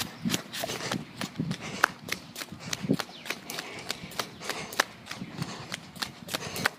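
Footsteps of a person running, uneven thuds of footfalls amid many sharp irregular clicks and rubbing from the handheld recorder jostling.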